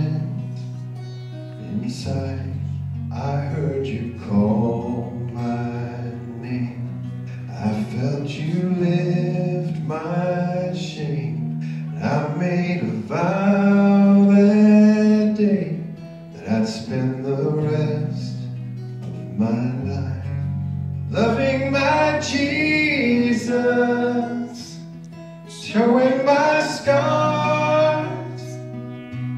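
Live worship song: a man sings a slow melody into a microphone to acoustic guitar accompaniment, over sustained low backing notes.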